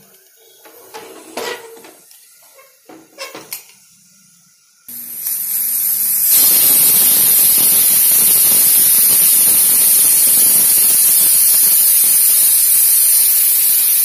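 A few clicks and knocks of a pressure cooker's lid and handles being locked, then about five seconds in the cooker's weight valve starts releasing steam in a loud, steady hiss, the cooker's 'whistle', which grows louder a second later and keeps going: the cooker has come up to pressure.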